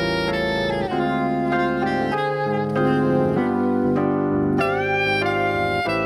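Saxophone and piano playing a slow instrumental duet: the saxophone holds long notes over piano chords, scooping up into a high note at the start and again near the end.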